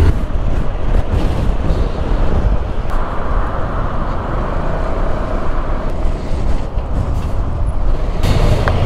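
Road traffic noise with a heavy low rumble, a passing vehicle growing louder for a few seconds in the middle.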